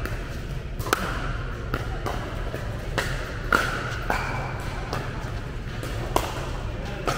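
Pickleball paddles striking a hollow plastic pickleball in a fast rally: about seven sharp pops at irregular intervals, the loudest about three and a half seconds in, each ringing briefly in a large indoor hall over a steady low hum.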